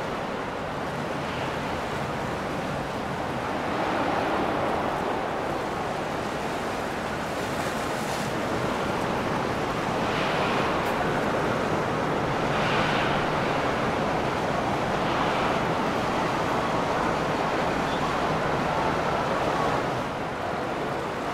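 Steady rush of water and wind noise, swelling and easing every few seconds, with a faint low hum underneath from boat engines on the river.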